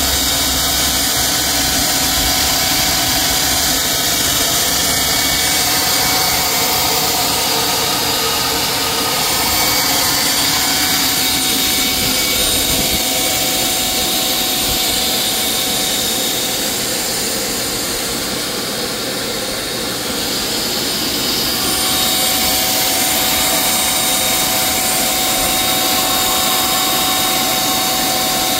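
Capstone microturbine running: a steady rushing whine with high-pitched tones on top. It eases slightly about two-thirds of the way through, then comes back up.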